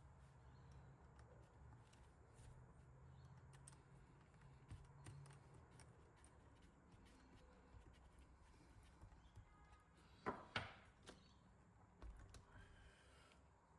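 Quiet handling of a radio-controlled model truck chassis while a rubber tyre is worked onto its front wheel: faint small clicks and rubbing, with two sharp knocks close together about ten seconds in.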